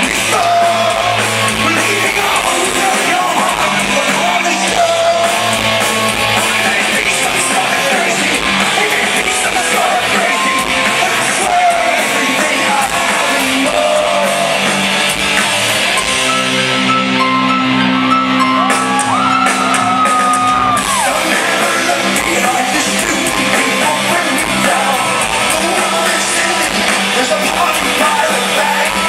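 Rock band playing live, with a male lead singer over electric guitars, bass and drums, in a reverberant concert hall.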